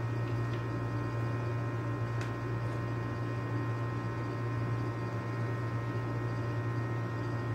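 Steady electrical mains hum, with a couple of faint clicks.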